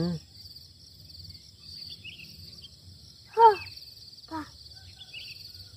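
A steady, high, pulsing chorus of insects at dawn in the hills. Two short voice-like calls cut across it, a loud one about three and a half seconds in and a softer one just after.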